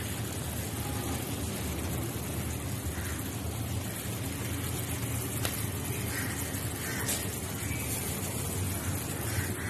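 Marinated meat sizzling on a hot stone slab: a steady hiss with small crackles, over a low rumble.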